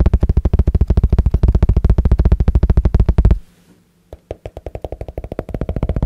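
Rapid, even fingertip tapping on the rubber face of a table tennis paddle, which stops about three seconds in. After a short pause, fingertip tapping on a hardcover book starts lightly and grows heavier near the end.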